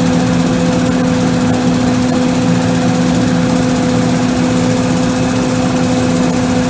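John Deere 9500 combine harvester running steadily while cutting wheat: a constant machine drone with an unchanging hum.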